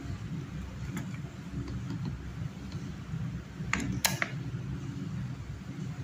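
Sharp mechanical clicks from push-button switches and a contactor on a small emergency-stop control panel, a short cluster of them about four seconds in, over a steady low hum.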